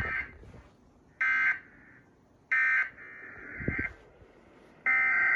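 Emergency Alert System digital data bursts (SAME AFSK tones): three short, harsh buzzy bursts a little over a second apart, the end-of-message code that closes a required monthly test. Near the end a longer burst follows, the start of the next station's alert header.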